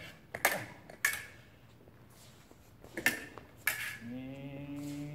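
Fencing blades clashing: about four sharp, short metallic clinks at irregular intervals as the blades meet during the lesson drill. From about four seconds in, a man's voice holds one low steady tone.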